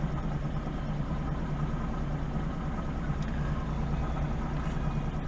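Car engine idling with a steady low hum, heard from inside the stopped vehicle.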